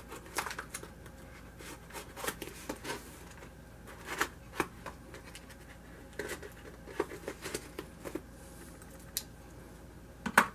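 Fingers picking and scraping at the tape on a cardboard shipping box, a scatter of light scratches and taps, with a sharper knock near the end.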